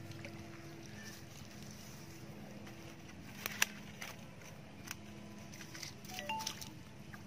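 Wicker fish basket handled by hand, giving a few sharp taps about three and a half seconds in and again near five seconds, over a steady low hum.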